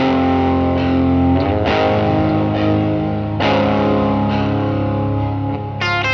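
Electric guitar through a Helix preset built on a Tweed Deluxe amp model, played with overdrive, delay and reverb. Chords are struck about every one and a half to two seconds and left to ring, with quicker notes near the end.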